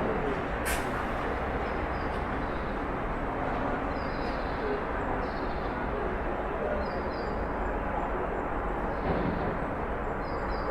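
Backyard ambience: a steady low background rumble of outdoor noise, with short high bird chirps in quick pairs about three times. A single sharp click comes just under a second in.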